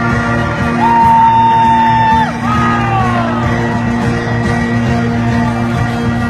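Live rock band playing a slow, sustained passage, recorded from within the audience. About a second in a high note is held, then slides down in pitch, followed by a few more falling glides over the held chord.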